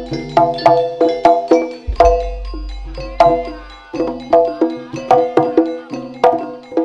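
Javanese gamelan accompaniment for a barong dance: a fast run of ringing struck bronze pitched percussion over drumming, with a deep gong stroke sounding about two seconds in.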